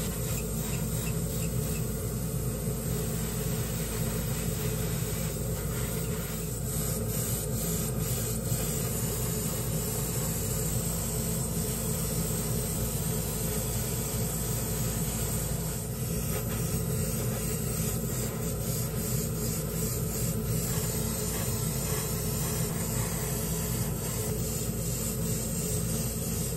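Airbrush spraying lacquer paint with a steady hiss, over a constant low motor hum.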